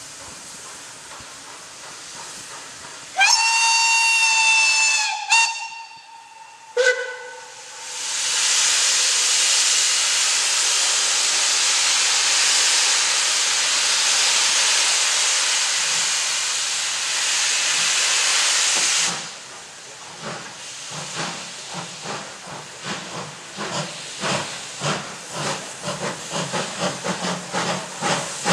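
Steam locomotive whistle blown for about two seconds, followed by two short toots, the second lower in pitch. Then a loud, steady hiss of escaping steam for about eleven seconds. After that, the exhaust chuffs of two steam locomotives starting a train, the beats quickening as they pull away.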